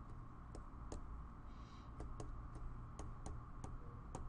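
Stylus clicking and tapping against a tablet screen during handwriting: about a dozen faint, sharp, irregular clicks, roughly three a second, over a low steady hum.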